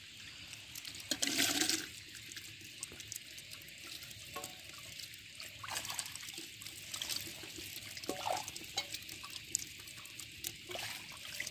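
Water splashing and sloshing in a metal bowl of live, freshly netted small fish, in irregular bursts with one louder splash about a second in.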